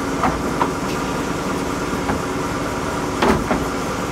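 RB-55-2 drum wood chipper line running: a steady machine hum with several steady tones, broken by a few sharp knocks and clatters, the loudest about three seconds in.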